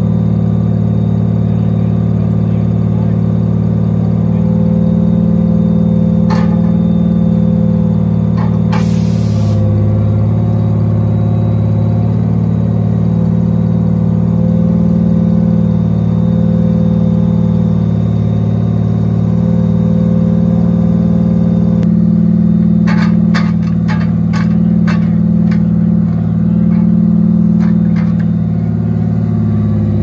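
Log truck's diesel engine running steadily to drive the knuckle-boom loader's hydraulics, its note dipping and recovering as the boom takes the load. A short hiss comes about nine seconds in, and a run of knocks from the grapple and logs comes near the end.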